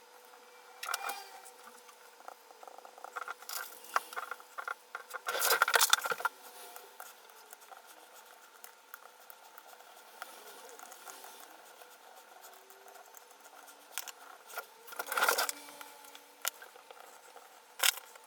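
Hands working on an opened laptop on a workbench: scattered light clicks and taps of small tools and parts, with two louder bursts of rustling and scraping, the first about five seconds in and the second near the end.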